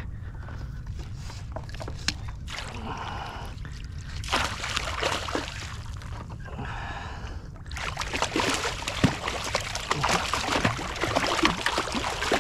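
Hooked bluefish thrashing at the surface beside a kayak while being landed with a net: irregular water splashing and sloshing that turns denser and louder about two-thirds of the way in.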